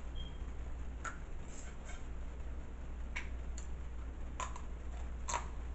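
Eating sounds: sharp wet clicks of lips and mouth, scattered about once a second, as she sucks her fingers and chews seafood boil.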